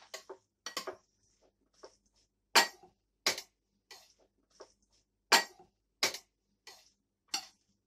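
Metal spoon clinking and scraping against a glass baking dish as white beans are stirred and tossed: irregular clinks, with about five sharp ones louder than the rest.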